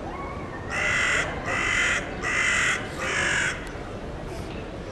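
A bird giving four harsh, crow-like caws in a row, each about half a second long and evenly spaced.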